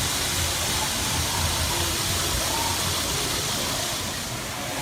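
Steady hiss of shop room noise with a low rumble underneath, as N gauge Shinkansen models run on a rental layout; faint voices in the background.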